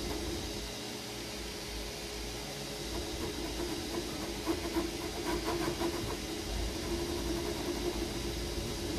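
Creality Ender 3 V3 KE 3D printer running a print: a steady mechanical hum with a hiss, and a patch of faint quick ticks through the middle.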